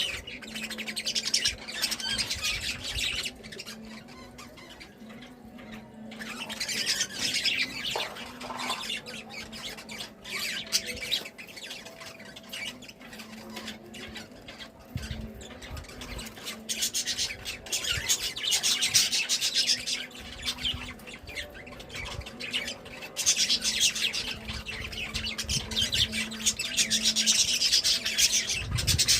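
Budgerigars chattering and squawking in spells of dense, rapid high-pitched warbling, with quieter gaps between, over a faint steady low hum.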